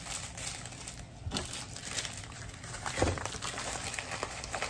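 Plastic packaging crinkling and rustling as it is handled, with a few sharper crackles about a second and a half in and about three seconds in.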